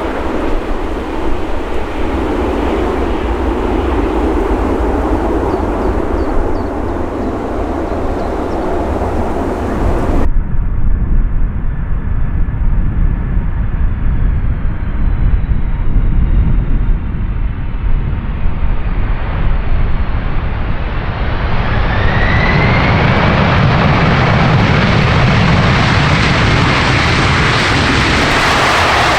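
Large aircraft engines passing loudly, with an abrupt change about ten seconds in where one recording cuts to another; past twenty seconds a rising engine whine comes in as the sound grows louder.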